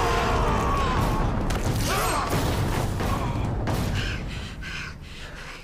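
Staged fight: several blows and thuds with grunts as a man is knocked to the ground. The noise dies down after about four seconds.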